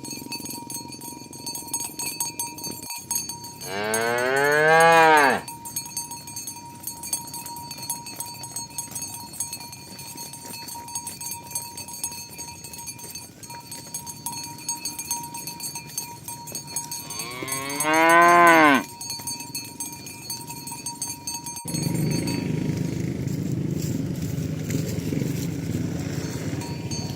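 Cattle mooing: two long, loud moos about fourteen seconds apart, each rising then falling in pitch. Near the end a low steady rumble sets in.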